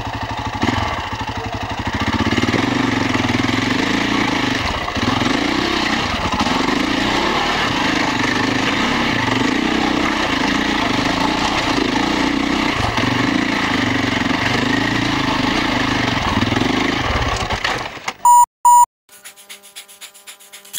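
Beta RR 525's single-cylinder four-stroke engine running under load, its revs rising and falling. Near the end the engine sound cuts out suddenly, followed by two short high electronic beeps and then faint regular ticking.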